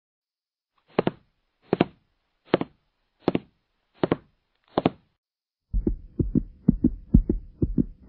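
Heartbeat sound effect: six slow double thumps, evenly spaced about three-quarters of a second apart, then from about six seconds in a faster, quickening run of beats over a faint steady hum.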